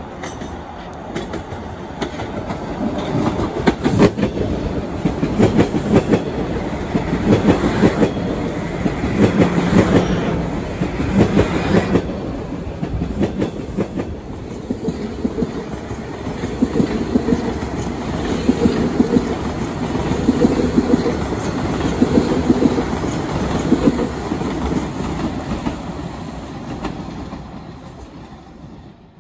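TTC Toronto Rocket subway train running along open track, its wheels clicking over rail joints with a low pulsing hum underneath. It fades away near the end.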